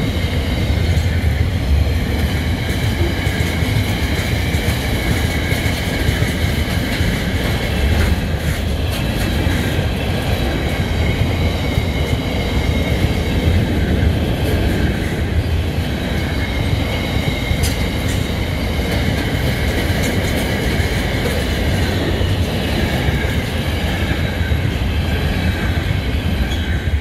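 Container freight train's flat wagons rolling past at close range: a steady heavy rumble of wheels on the rails with the odd click, and a high, steady squeal from the wheels held throughout.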